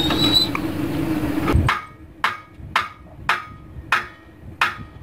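A steady low hum cuts off about a second and a half in. Then come six evenly spaced hammer taps, a little over half a second apart, as a door frame is knocked into plumb.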